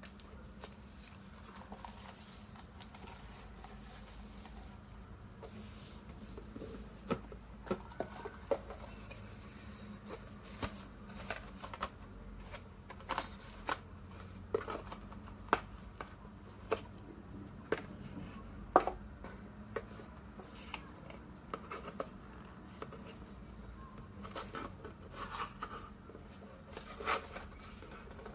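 Hands handling earphone packaging: irregular sharp clicks, taps and light rustles of a cardboard box insert and its contents, the loudest click about two-thirds of the way through, over a faint steady hum.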